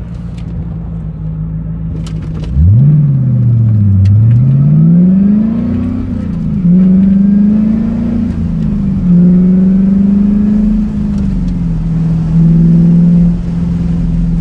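C4 Corvette V8 with its mufflers deleted (straight-piped), heard from inside the open-topped cabin. It cruises steadily, then opens up hard about two and a half seconds in and pulls through several gears, its pitch climbing and dropping back at each shift. A last short burst of throttle comes near the end before it settles back to a steady cruise.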